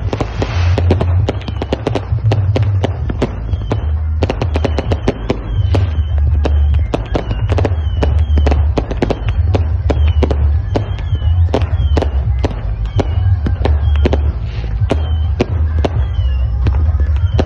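A multi-shot fireworks cake firing a rapid, irregular barrage of sharp bangs, about two to four a second, many followed by a brief whistle. Under it the deep bass of a large sound system pounds on.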